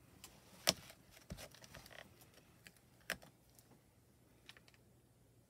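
Faint, scattered clicks and taps of small plastic craft supplies being handled on a work desk, with one sharper click under a second in and another about three seconds in.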